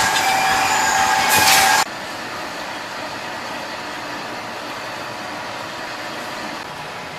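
A machine running with a steady high whine, which cuts off abruptly about two seconds in, leaving a quieter steady mechanical noise.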